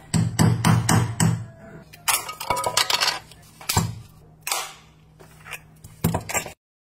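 Clicks, knocks and clinks of a power bank being taken apart by hand: a prying tool working the plastic and metal casing, with parts and tools set down on a wooden board. Four quick sharp knocks come first, then scattered clusters of clicks, and the sound cuts off just before the end.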